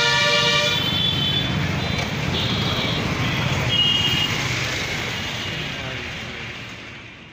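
Road traffic: engines and tyres rumbling steadily, with a vehicle horn honking that stops about a second in and shorter horn toots about two and a half and four seconds in. The sound fades out at the end.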